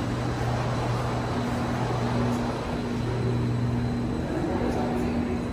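Steady low machine hum over a rushing air noise.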